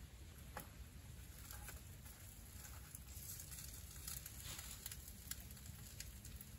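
Faint, scattered light clicks and taps as pieces of meat are moved about in a skillet on a portable gas camp stove, over a low rumble.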